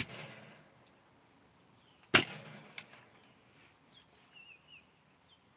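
Japanese marble-soda (ramune-style) bottle being opened with its plastic plunger. A sharp pop right at the start, then a louder pop about two seconds in as the seal gives, each followed by a brief fizzing hiss of carbonation.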